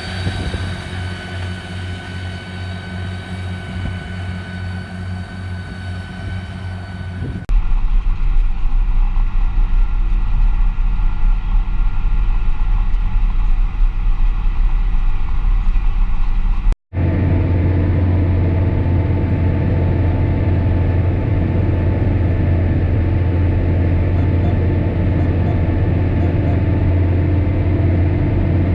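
Tractor engines running steadily, in three cut-together takes. First a John Deere tractor with a disc mower, its engine hum carrying a steady high whine. Then, about seven seconds in, a deep, louder drone heard from inside a tractor cab. After a brief dropout a little past halfway, another cab's steady engine hum.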